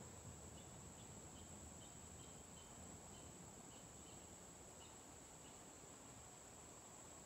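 Near silence with faint insect sounds: a steady high-pitched whine, and a run of short chirps repeating about twice a second that stops after about five seconds.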